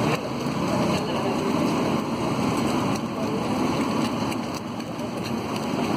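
Pav bhaji sizzling on a large flat griddle (tawa) as it is mashed and stirred with a hand masher, a steady wet crackle.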